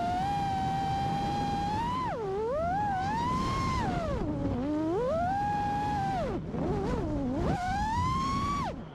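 FPV freestyle quad's brushless motors (Hypetrain 2306 1750KV on 6S) spinning tri-blade props, a high whine whose pitch rises and falls with the throttle, dipping sharply three times as the throttle is chopped for flips and dives, over the rush of prop wash.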